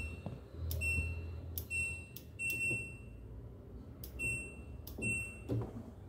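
Control panel of an LG 10.5/7 kg front-load washer-dryer beeping as its program dial is turned to select the dryer option. There are about six short, high beeps at uneven intervals, each with a soft click, and one beep is held a little longer.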